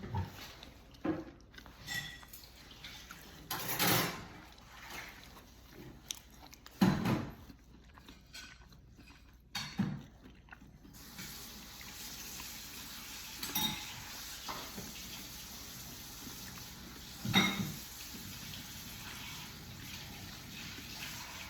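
Eating cereal and milk from a bowl: a spoon clinks against the bowl now and then with a short ring, between wet spoonfuls of milk.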